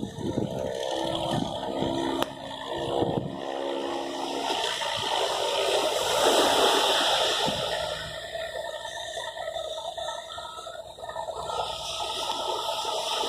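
Sea water rushing and washing in rough surf, swelling to its loudest about six seconds in and easing off after. A steady motor hum runs under it for the first few seconds.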